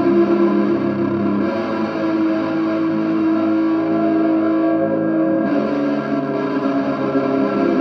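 Ambient drone of sustained, layered guitar tones run through a chain of effects pedals (Walrus Audio Melee, Non-Human Audio Slow Loris, Lichtlaerm Audio Transcendence, Malaise Forever Golden Guillotine), smeared into a wash; the held notes shift about a second and a half in and again around five and a half seconds in.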